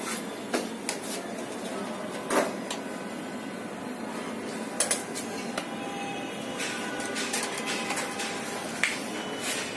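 Irregular sharp clicks and knocks over steady background noise, the loudest about two seconds in and a quick pair near the middle.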